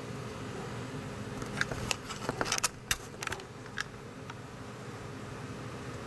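Steady low hum and hiss with a quick run of light clicks and taps about a second and a half in, lasting about two seconds.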